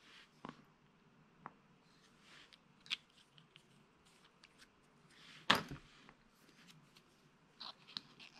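Faint handling noises of a small glue tube and a model locomotive chassis on a cutting mat: scattered soft clicks and rustles, with one sharper knock about five and a half seconds in and a few quick clicks near the end.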